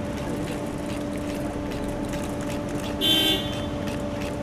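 A car idling with a steady hum, and one short car horn toot about three seconds in.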